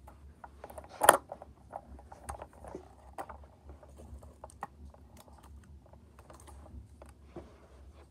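Scattered small clicks and knocks of a First Gear die-cast toy garbage truck and plastic toy cans being handled on the floor, with one loud knock about a second in.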